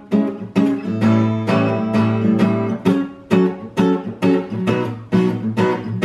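Acoustic guitar strummed in a steady rhythm, about two to three strums a second.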